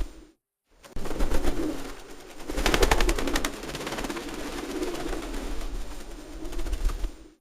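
Pigeons cooing, deep and rhythmic. About two and a half seconds in comes a rapid clatter of sharp clicks lasting about a second. The sound cuts out briefly just after the start.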